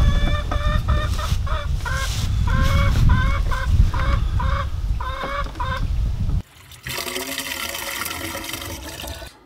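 Chickens clucking in a rapid series of short calls over a heavy low rumble. After a sudden break about six and a half seconds in, water is poured from a plastic jug into a PVC pipe chicken waterer with a steady rushing gurgle.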